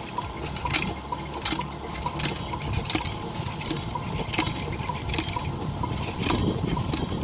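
Ramrod tamping the load down the barrel of a muzzle-loading percussion-cap gun, a series of sharp metallic clinks, roughly one a second.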